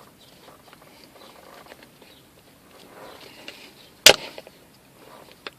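Soft handling noises as shifter parts are worked by hand, with one sharp click about four seconds in, like a plastic piece snapping or knocking against the shifter.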